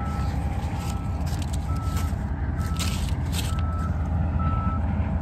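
Harvest machinery running nearby, a steady low rumble, with a warning alarm beeping about once a second. Dry corn leaves rustle as they are handled, most around the middle.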